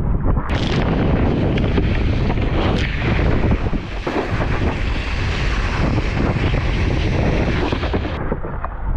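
Wind buffeting an action camera's microphone over the steady rush and spray of water off a wakeboard as it cuts across the water.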